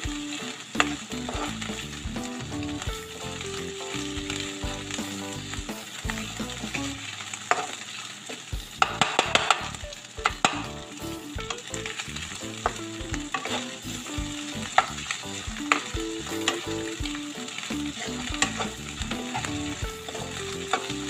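Sliced meatballs, sausage and egg sizzling in a hot stone-coated wok while a metal spatula stirs them, scraping and clicking against the pan. A cluster of louder spatula clicks comes around the middle.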